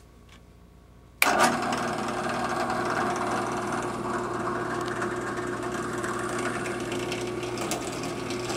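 Drill press switched on about a second in, then running steadily with its motor hum, ready to drill the tap hole for a swivel stud in a shotgun barrel.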